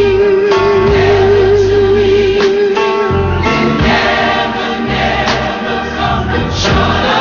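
Gospel choir singing with band backing: a long note with vibrato is held for about the first three seconds over a steady bass, then the choir and instruments move on to changing chords.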